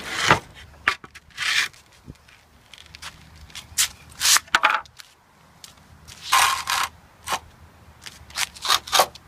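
Scrap wooden boards scraping and knocking against each other as one is pulled out from under a pile, a string of irregular scrapes and clatters.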